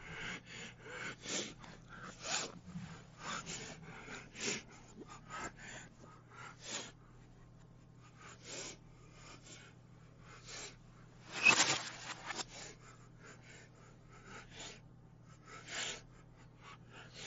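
Faint, short, irregular breathy huffs and rustles from a man moving about, one louder about two-thirds of the way through, over a low steady hum.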